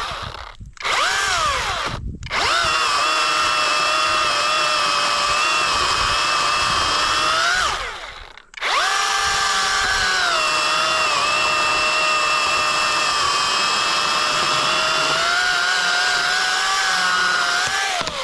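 Battery-powered Youxian chainsaw cutting the back cut through a large tree trunk: a steady electric motor whine that sags in pitch as the chain bites and picks up again when eased. The cut stops briefly three times: about half a second in, about two seconds in, and about eight and a half seconds in.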